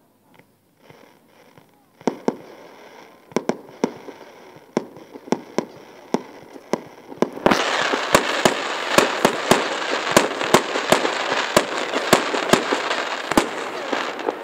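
Distant aerial fireworks going off: scattered sharp bangs from about two seconds in, then about halfway through a dense run of rapid bangs over a continuous crackle, which dies away just before the end.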